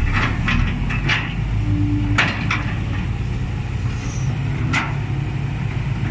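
Excavator's diesel engine running steadily under load while it digs and loads soil, with several sharp clanks and knocks, most of them in the first half and one more near the end.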